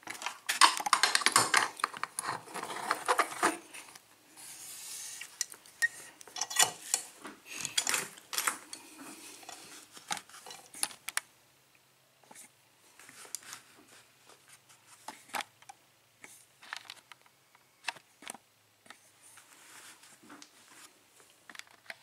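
Small metal clicks, rattles and rubbing as a padlock and lockpicking tools are handled, busiest in the first few seconds and then sparser and quieter.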